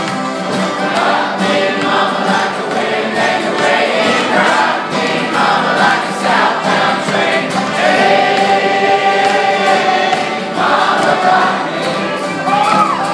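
Large acoustic folk band with accordion, acoustic guitar, fiddle, dobro and banjos playing a strummed, rhythmic song while many voices sing together, with a long held sung note about two-thirds of the way through.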